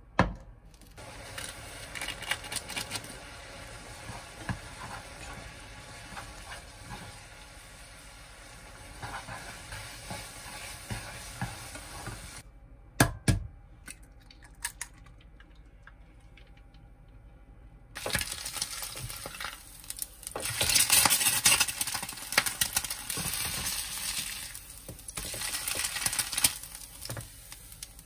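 Instant noodles cooking in a small pot on an electric hob, stirred, with the utensil clicking against the pot. A sharp knock comes about thirteen seconds in. After a quieter stretch, oil starts sizzling in a rectangular frying pan, loudest near the end.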